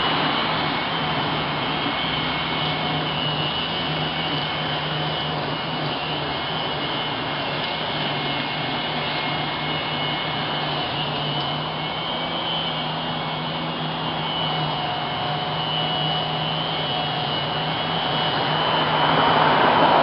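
Vacuum motor running steadily, a rushing hiss with a constant hum and whine. The hiss swells louder near the end.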